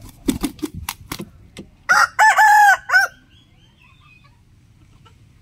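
A rooster crows once, about two seconds in: a loud pitched call in three parts, with a short note, a long held note and a short falling end. Before it there are several sharp clicks or knocks.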